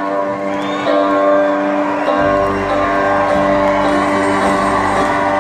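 Live country band playing on stage in an arena: sustained held notes over the band, with the bass and low end coming in about two seconds in.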